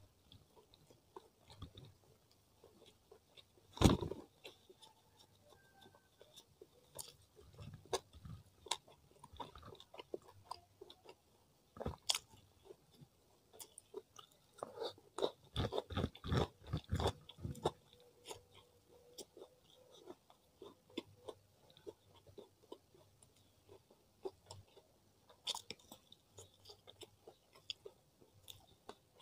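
Close-miked chewing and crunching of a meal eaten by hand: rice, grilled chicken and crisp kerupuk crackers. Irregular crackles and mouth clicks, with one sharp loud crunch about four seconds in and a dense run of crunching a little past the middle.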